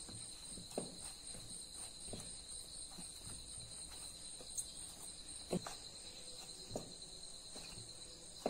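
Hands kneading a soft flour dough in a bowl: soft, irregular knocks as the dough is pressed and turned against the bowl, a little more than one a second. A steady high-pitched tone sounds underneath.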